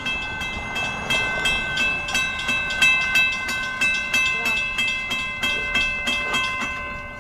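Railroad grade-crossing bell ringing rapidly, about four strokes a second, each stroke ringing on, then fading and stopping near the end.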